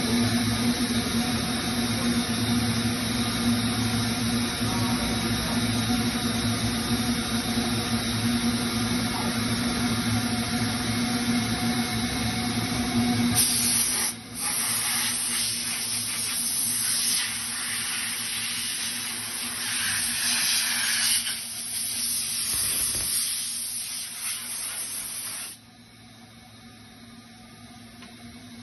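A thermoforming machine runs with a steady hum; about halfway through, a compressed-air blow gun starts a loud, even hiss over the formed plastic part, breaking off briefly just after it starts, and cuts off suddenly near the end, leaving a much quieter hum.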